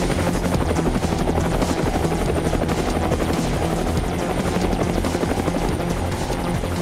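Helicopter rotor chopping in a fast, even beat over a low rumble.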